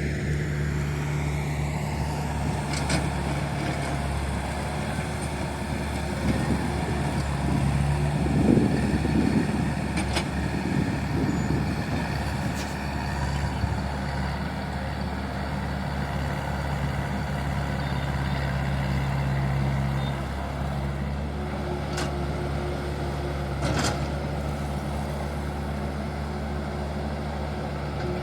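Tata Hitachi excavator's diesel engine running steadily, with a louder, rougher stretch in the middle and a few sharp clanks. The engine note shifts slightly about two-thirds of the way through.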